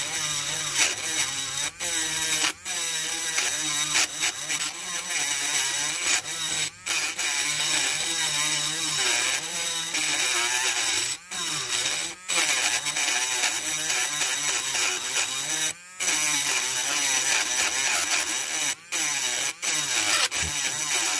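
Battery-powered pencil rotary tool with a burr buzzing as it grinds down the rivet on a diecast model's base. Its pitch wavers under load, and it cuts out briefly about eight times.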